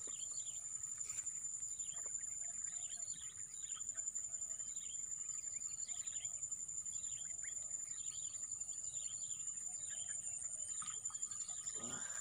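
A steady high-pitched insect drone, with a bird giving short falling chirps over and over, about one every second.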